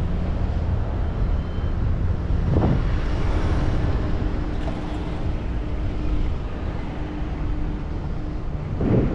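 Rumble of wind and road on an action camera's microphone while riding a bike through city traffic, with a steady low hum from about three seconds in. Two short thumps, one between two and three seconds in and one near the end.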